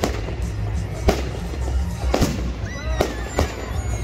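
Aerial firework shells bursting: sharp bangs about once a second, with crackling between them.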